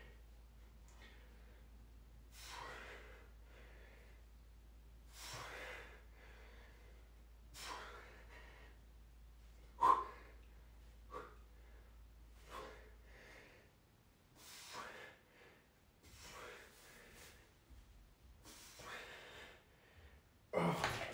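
A man breathing hard through a resistance-band arm exercise, with a short noisy exhale about every two seconds. One sharper, louder burst comes about halfway through, and a louder breath or grunt comes at the very end.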